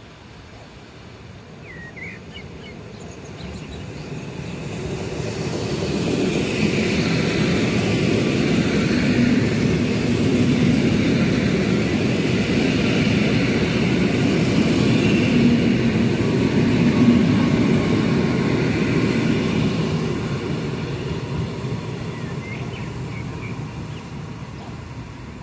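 Polregio electric multiple unit passing close by: the rumble of wheels on rails builds over a few seconds, stays loud for about a dozen seconds, then fades away. A few faint bird chirps near the start.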